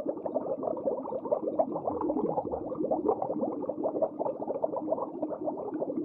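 Water in an aquarium tank bubbling densely and steadily, with a low steady hum underneath.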